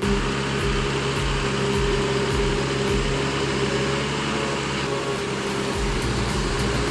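Engine of a heavy forestry rig hauling a load of lumber, running steadily under load as it pushes through deep mud.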